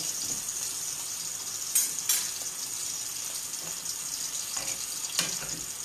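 Steady hiss of food cooking on the stove, with three sharp knocks of a utensil against a pot as fresh pasta is stirred in boiling water.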